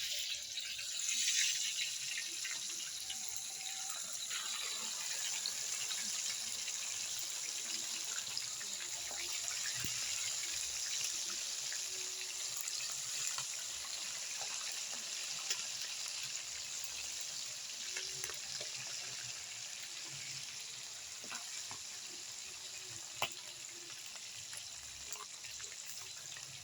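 Eels frying in hot oil: a steady high sizzle scattered with sharp pops and crackles, one pop standing out loud near the end.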